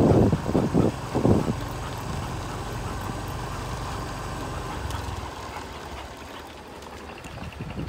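Motorbike engine running steadily at low speed. A few loud rough rushes of noise come in the first second and a half.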